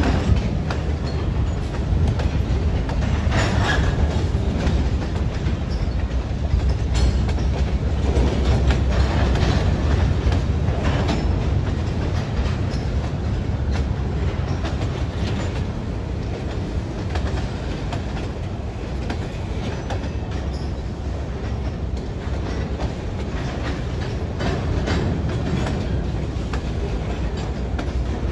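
Freight train of covered hoppers, tank cars and boxcars rolling past: a steady rumble with the clack of wheels over rail joints.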